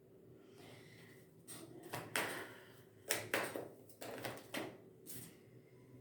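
A string of short rustles and soft knocks, about eight in quick succession, as something is handled on a hard surface.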